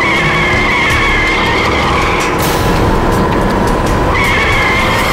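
Truck tyres screeching in a skid over the rumble of the vehicle: a high, steady squeal lasting about two seconds, then a second squeal starting about four seconds in. Dramatic background music plays underneath.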